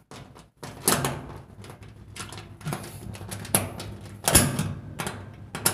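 Irregular metal clicks, scrapes and knocks of a nut driver working a bolt on the steel base frame of a top-load washing machine, with one sharper knock about four seconds in.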